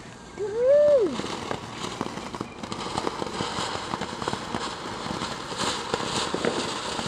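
Ground fountain firework spraying sparks: a steady hiss with dense crackling that builds slightly toward the end. About a second in, a short rising-then-falling pitched sound is louder than the fountain.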